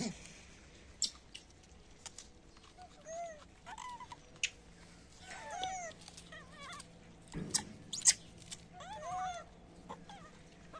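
Young macaques giving short arched coo calls that rise and fall, several times over, with sharp clicks and knocks in between.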